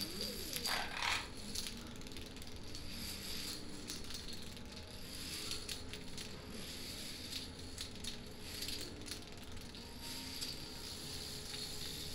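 Toppling dominoes clattering as they fall in long chains: a continuous rapid patter of many small clicks.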